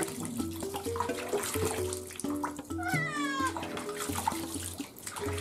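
A domestic cat gives one falling meow about three seconds in, a protest at being held and washed in the bathtub. Background music with a simple stepping melody plays throughout.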